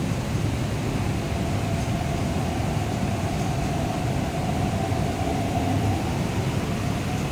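MTR East Rail Line R-train electric multiple unit pulling out of the platform: a steady rumble with a faint motor whine held at one pitch through the middle.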